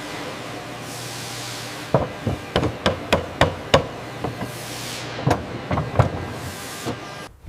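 Hammering: a quick, irregular run of about a dozen sharp knocks over a low steady hum. It breaks off suddenly just before the end.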